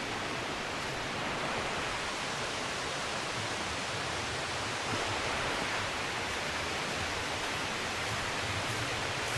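Steady rush of water from a stream and waterfalls in a rocky gorge.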